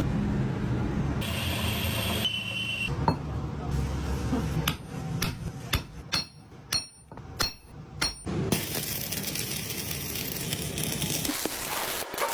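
Metal workshop sounds in quick succession: a machine running steadily, then a series of about seven sharp knocks like hammer blows on metal in the middle, then a steady rushing noise.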